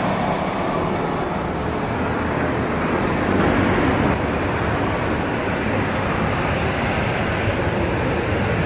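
Steady rumble of airliner jet engines on the runway. The sound shifts at a cut about four seconds in: first a Boeing 737-800 rolling out after landing, then an Airbus A330-200 at the start of its takeoff.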